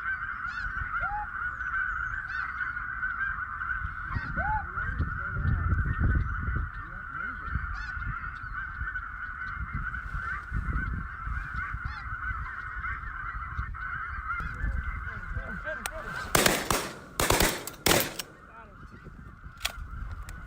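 A huge flock of snow geese calling together in a dense, unbroken din, with wind rumbling on the microphone. Near the end a few loud bursts cut across it.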